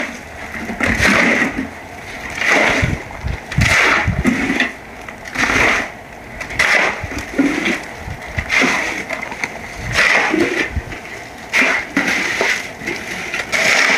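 Repeated rough swishing strokes, about one a second, each with a dull thud beneath it.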